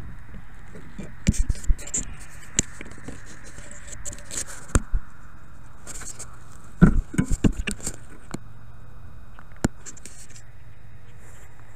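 Close knocks, scrapes and rustling on a small FPV drone's onboard camera microphone as the downed drone is handled in the grass, coming in clusters about a second and a half in and again about seven seconds in, with a lone click near the end.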